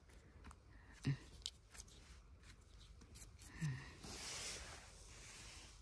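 Faint scratchy rustling and small clicks from hands handling mushrooms, with a soft hiss of scraping or rustling over the last couple of seconds. Two brief low murmurs, about a second in and again about three and a half seconds in.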